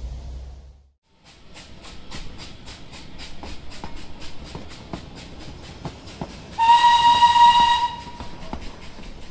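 A train running with an even beat of about four strokes a second, its whistle blowing once for just over a second about two-thirds of the way through. Before that, the outdoor ambience fades to silence about a second in.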